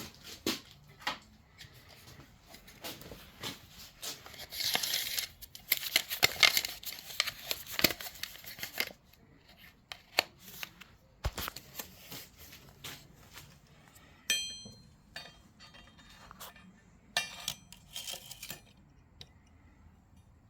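Workshop handling noises: scraping and rustling with scattered knocks, strongest for several seconds near the start. A ringing metal clink comes around two-thirds of the way through, among light clinks of steel pieces.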